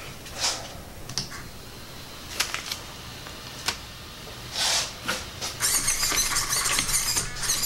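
A few clicks and knocks, then, starting about two-thirds of the way through, the Arrma Talion 6S BLX's steering servo whirring in rapid, high-pitched bursts as it swings the front wheels back and forth.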